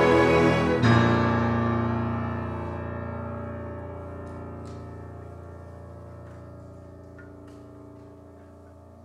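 Music: a dense ensemble texture, then a loud, deep piano chord struck about a second in that rings on and slowly fades away.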